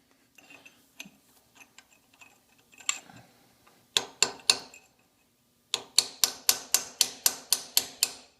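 Chisel being struck to tap a machined-thin valve seat out of a cast-iron cylinder casting: scattered light knocks, then four sharp metallic taps about four seconds in, then a quicker run of about a dozen taps, roughly four a second, near the end. The seat is loosening and starting to come out.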